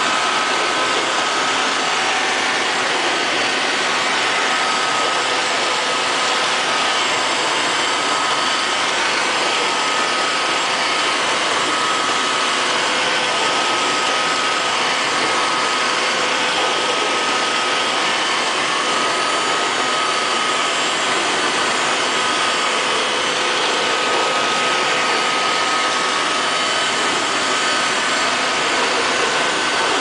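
Liectroux LL-305 robot vacuum cleaner running: the steady whir of its suction fan and motors, with a thin high whine over it.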